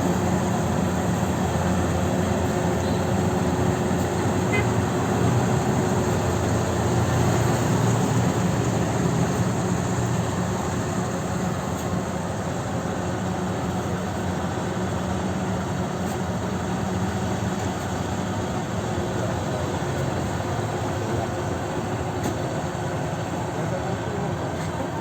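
Kubota DC-93 combine harvester running steadily under load, its diesel engine and threshing machinery making a continuous dense mechanical noise that eases slightly after about ten seconds.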